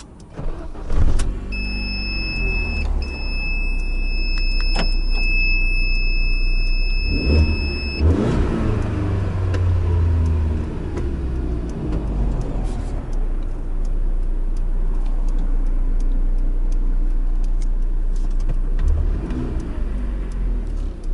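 GAZelle van's engine heard from inside the cab, catching about a second in on a restart after it had stalled following a loud bang from the propane system, then running steadily on petrol. A steady high electronic warning tone sounds from about two to eight seconds in, and the engine note swells around eight seconds as the van pulls away.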